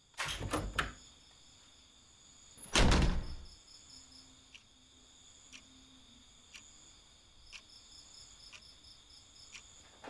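A few quick knocks, then a single heavy thud about three seconds in, the loudest sound here. After it a clock ticks about once a second over a steady chirping of crickets.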